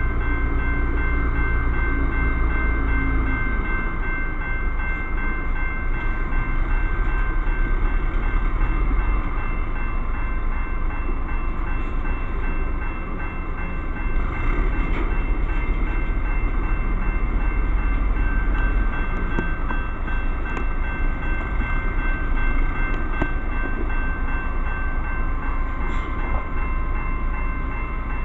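Railroad crossing bell ringing steadily over the low running of a hi-rail track truck's engine as it manoeuvres onto the track; the engine rumble swells twice.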